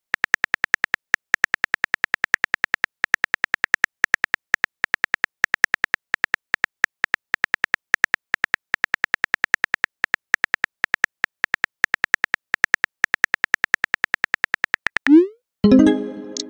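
Phone keyboard tap clicks, quick and regular at about seven a second, as a text message is typed out. Near the end a short rising swoosh marks the message being sent, followed by a pitched chime that dies away.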